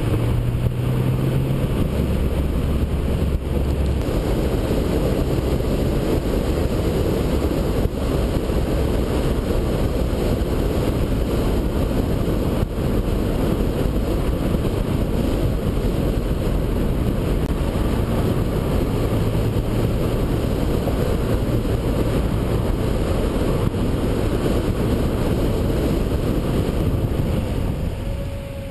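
Steady rush of wind and road noise from a car driving at speed, picked up by a microphone mounted on the outside of the body, with engine sound underneath. The level sags slightly near the end.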